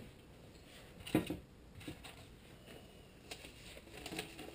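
A few short knocks and rustles from a package and its contents being handled, the loudest about a second in, between quiet stretches.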